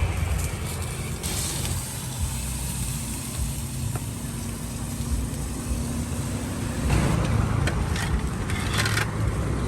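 Low rumble of road traffic, with an engine's steady hum through the middle and the noise growing louder about seven seconds in.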